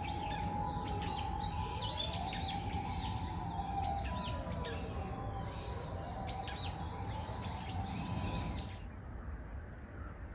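Wild birds calling in woodland: many short, high, overlapping chirps and slurred notes, with slower lower whistled glides beneath, until they stop a little before the end. A steady low rumble runs underneath.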